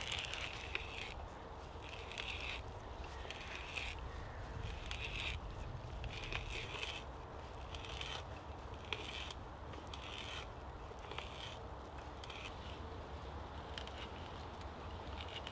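Hand auger with a spiral bit boring into the end grain of an upright wooden post, the bit rasping through the wood in short scrapes about once a second as the T-handle is turned. The post is being bored to take a peg.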